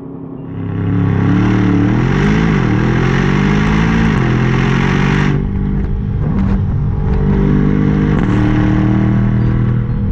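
Aston Martin DBX 707's twin-turbo 4.0-litre V8 coming up in revs and held loud with launch control engaged for a race start, with a rushing noise over it that cuts off suddenly about five seconds in; the engine then runs steadily under load.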